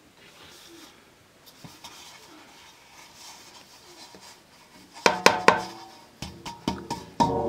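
Metal tray and steel mixing bowl knocking together as flour is tipped and worked by hand: faint rustling at first, then from about five seconds in a run of sharp metallic clanks that ring on.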